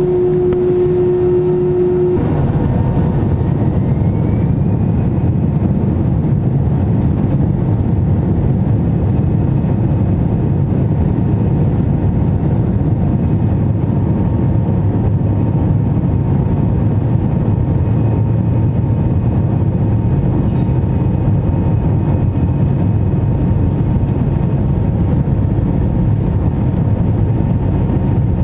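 Airliner engines heard from inside the cabin: a loud, steady low roar. A few seconds in, a whine rises in pitch and then holds as the engines spool up.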